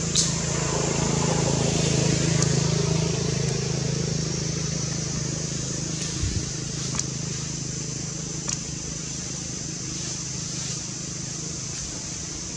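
Steady low hum of a running engine, with a constant high hiss above it and a few faint clicks.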